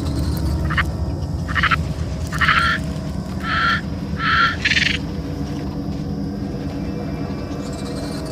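Dryosaurus calls created as sound design for a dinosaur documentary: about six short, high calls in quick succession, falling silent about five seconds in, over a steady low rumble.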